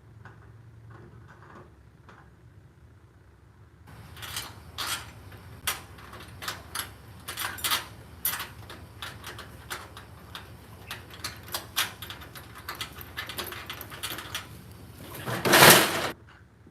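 Metal garage door lock parts and screws clicking and clattering as they are handled and fitted into the door, starting about four seconds in, with a louder rattle near the end that stops abruptly.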